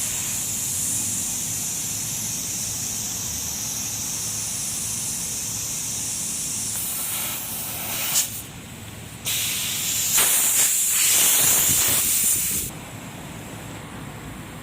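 Compressed air hissing steadily from an electronic tyre inflator as it fills a tyre toward its 37 psi set pressure. Around the middle the hiss changes and briefly drops with a click, then comes back louder for about three seconds before cutting off.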